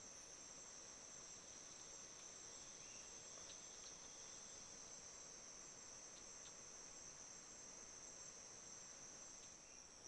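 Faint, steady high-pitched drone of an insect chorus in tropical rainforest, with a couple of tiny ticks midway.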